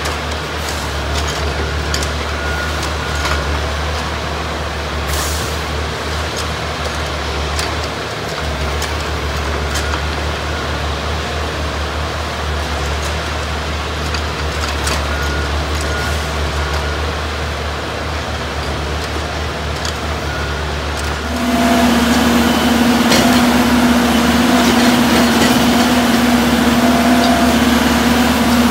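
Diesel engines of railroad maintenance-of-way machines running steadily, with scattered light clicks. About three-quarters of the way in, the sound jumps louder and closer as one machine's engine runs nearby, with a steady hum.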